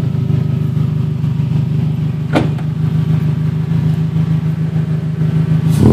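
Race-prepared Toyota Camry's engine idling steadily. A single click about two seconds in and a sharper knock near the end cut through the idle.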